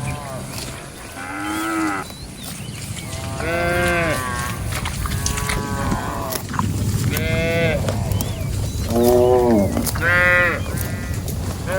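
Cattle mooing repeatedly, about eight calls of rising-then-falling pitch. Some are short and some drawn out, and they come at several different pitches, as from more than one animal.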